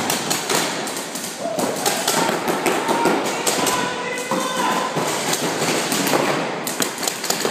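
Paintball markers firing rapidly in a large indoor hall, many overlapping pops and paintballs smacking into inflatable bunkers.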